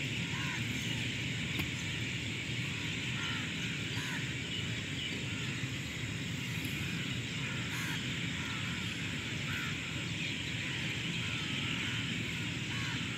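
Outdoor evening ambience: crows cawing now and then over a steady low rumble and hiss.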